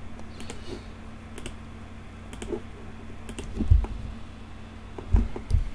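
Scattered clicks of a computer mouse and keyboard, with a few dull low thumps in the second half and a faint steady hum beneath.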